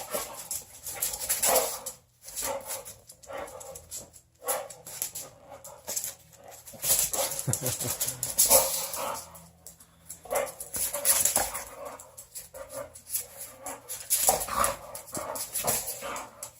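Boxer dog in a frenzy chasing a laser dot: an irregular run of scuffling, knocking and crinkling as he lunges and pounces, with a few short whines and barks.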